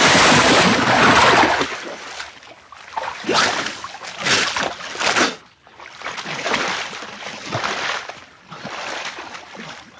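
A person plunging into water with a big splash, then the splashing of swimming strokes in a series of separate splashes.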